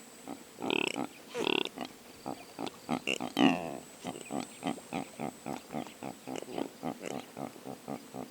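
Impala calling: a few louder calls in the first few seconds, then a fast run of short, evenly spaced calls, about four or five a second.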